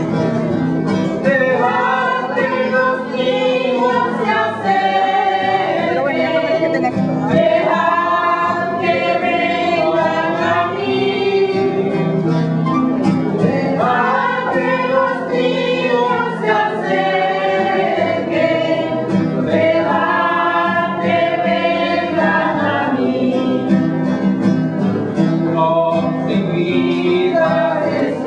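A choir singing a church hymn in long phrases over steady instrumental accompaniment.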